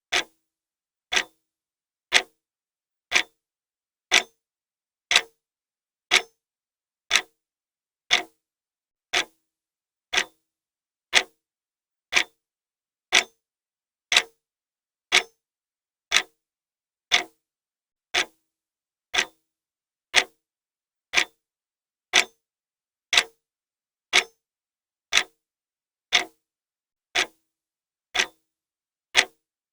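Clock ticking steadily, one sharp tick a second, with silence between the ticks.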